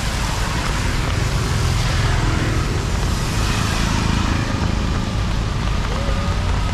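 Road traffic on a wet street: a steady low rumble of motor vehicles, with a tyre hiss that swells as vehicles pass about two to four seconds in.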